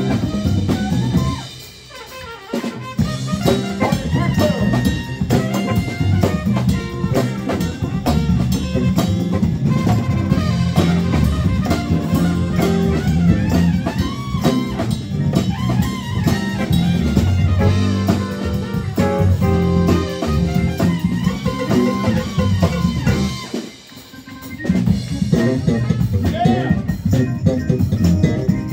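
Live band playing an upbeat number with congas, drum kit, saxophone, trombone and electric guitar. The band stops briefly twice, a couple of seconds in and near the end, then comes back in.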